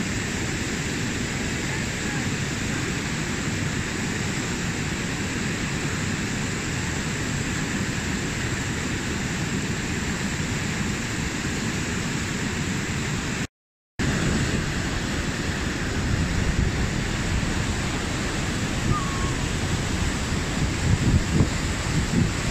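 Steady rush of whitewater: the Merced River's rapids pouring over the brink of a waterfall. The sound drops out for a split second a little past halfway, and wind knocks on the microphone a few times near the end.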